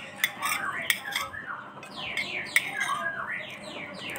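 Small birds chirping, a quick, overlapping run of short falling chirps, with a few sharp clicks among them.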